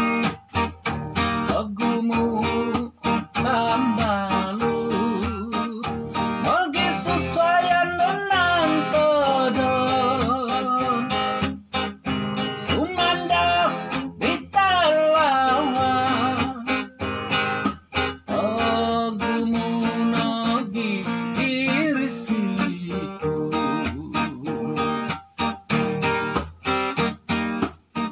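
Acoustic guitar strummed in a steady rhythm through an instrumental break of a song. A wordless melody line glides and wavers over the strumming for much of the break.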